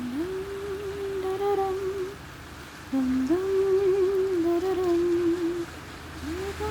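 A person humming a slow, wordless melody in phrases of a few seconds with short breaths between them, a new phrase starting near the end.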